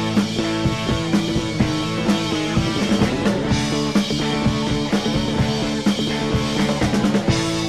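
Rock music recording: a band with electric guitars and drums playing a steady beat.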